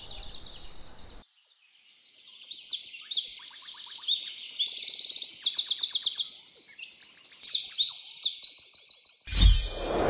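Birdsong: several small birds chirping and trilling rapidly, with a short lull about a second and a half in. Just before the end, a loud burst of noise sweeps in over it.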